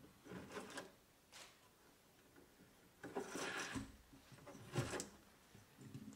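Upholstery twine being knotted and pulled taut over a chair seat's lashed coil springs: a few short rustling scrapes, the longest and loudest about three seconds in.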